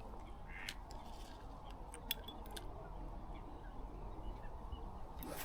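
A few light, sharp clicks, most of them in a quick cluster about two seconds in, over a steady outdoor background hum.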